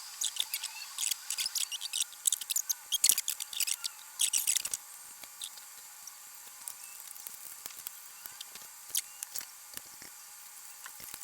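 Small clicks and scrapes of fingers and tools working the dial string and tension spring inside a Hallicrafters S-38E receiver, quick and busy for about the first five seconds, then only a few scattered faint ticks.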